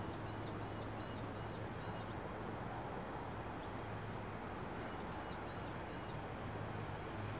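Low steady hum of distant diesel freight locomotives idling at a stand. Over it, birds give a short repeated call twice and quick high chirps from about halfway in.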